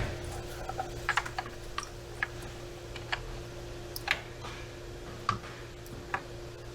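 Scattered light plastic clicks and taps, irregularly spaced, as a crank sensor wiring harness and its plastic clips are handled and routed by hand, over a faint steady hum.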